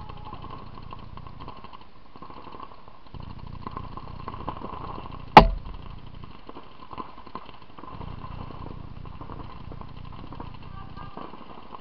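Paintball field sounds: a steady low rumble with faint scattered pops of paintball markers firing. One sharp, very loud crack comes about five and a half seconds in.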